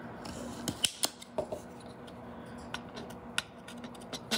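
Light metallic clicks and scrapes of a soldering iron tip working against a solder joint on a circuit board, irregular and about a dozen in all, over a faint steady hum.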